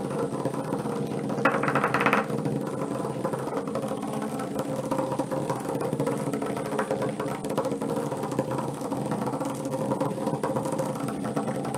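Two HEXBUG nano toy bugs buzzing steadily, their small vibration motors shaking them along the plastic track, with a brief louder rattle about one and a half seconds in.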